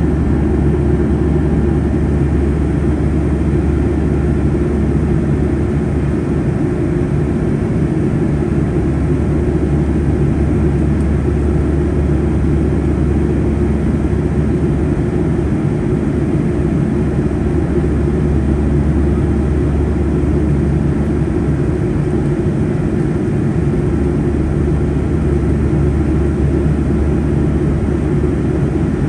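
Steady cabin noise of a Boeing 757-200 in flight, heard from a window seat beside the wing: a constant low drone of the engines and airflow, with a few steady low hum tones.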